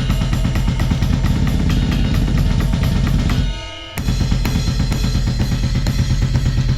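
Electronic drum kit played through a Ross DD-15 drum amplifier: fast drumming with bass drum, snare and cymbals. The playing breaks off briefly about three and a half seconds in, leaving a short ringing decay, then resumes with a sharp hit.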